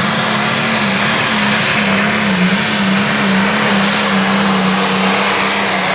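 Turbocharged diesel engine of a 9,500 lb limited pro stock Case IH pulling tractor running flat out under full load as it drags the weight sled down the track. The pitch holds high and steady with slight wavers.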